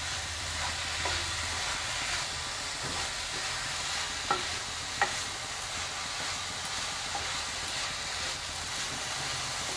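Wooden spatula stirring and scraping grated coconut cooked with jaggery in a non-stick wok, with a steady light sizzle. There are a few sharp taps in the first half. This is the sweet coconut filling being cooked down.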